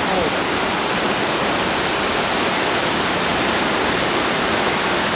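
River water pouring over a low weir, a steady, even rush.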